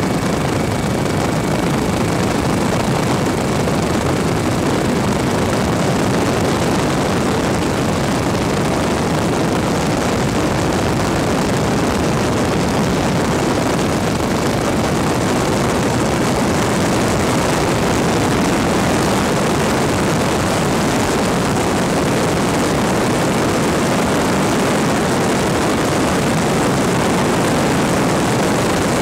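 A steady engine running without let-up.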